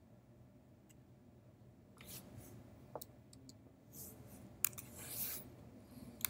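Faint clicks of computer keyboard keys, starting about two seconds in, irregular, with one sharper click past the middle.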